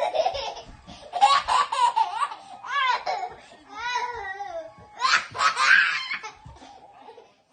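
A baby laughing in about five bursts of high-pitched belly laughter, fading near the end.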